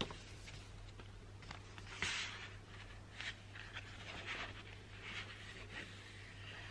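Paper envelopes and cards handled on a wooden table: rustling and sliding paper with small taps, the loudest rustle about two seconds in, over a low steady hum.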